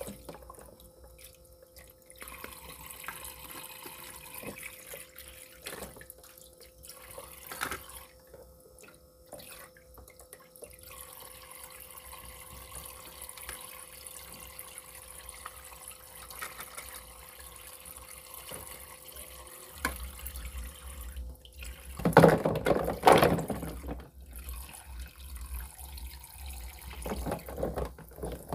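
Toy kitchen sink faucet running a thin stream of water into the basin, with occasional plastic clicks as toy dishes and fruit are handled. A burst of louder splashing comes about three-quarters of the way through.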